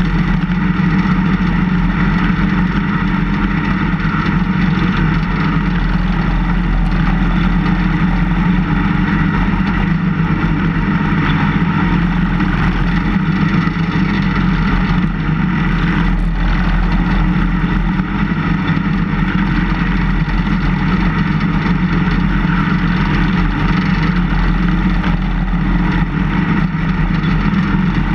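Engine of a snowplow vehicle running steadily while its front plow blade pushes snow.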